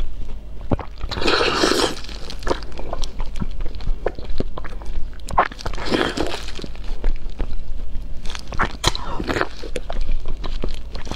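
Close-miked mouth sounds of someone biting and chewing a fatty chunk of braised pork: many small wet clicks and smacks throughout, with louder bursts of chewing about a second in, around the middle and near the end.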